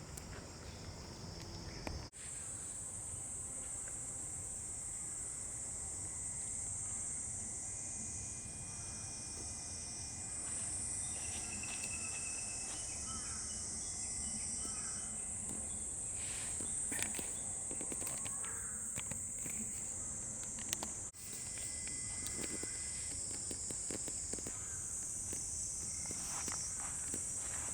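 A high, steady insect chorus with faint footsteps underneath. The sound drops out briefly twice, about 2 seconds in and about 21 seconds in.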